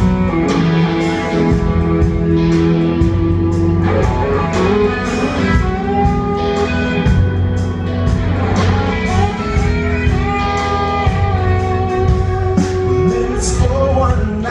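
Live band playing an instrumental break: electric guitar carrying the tune over drums keeping a steady beat.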